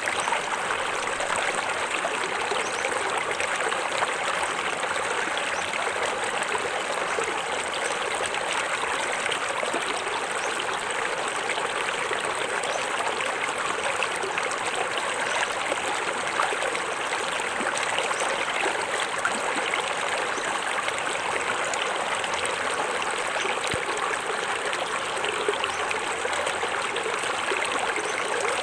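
Small forest waterfall: water spilling and splashing steadily into a stream, an even rushing with trickling and gurgling.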